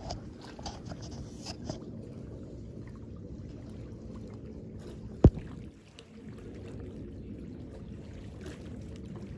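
Small waves lapping and trickling against the rocky lake shore, a steady low wash, with one sharp knock about five seconds in.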